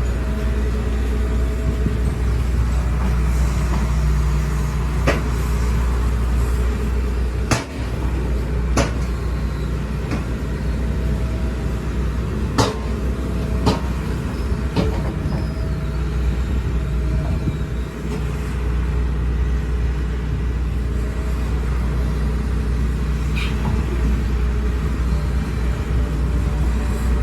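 Diesel engine of a tracked excavator (backhoe) running steadily under load, with sharp metallic clanks now and then, about seven in all.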